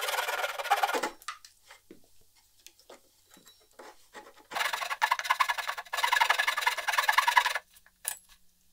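Flush trim saw cutting off the protruding end of a poplar plug flush with the wood, in quick rasping strokes. It stops about a second in, gives way to a few light taps and scrapes, then saws again from about halfway through until near the end.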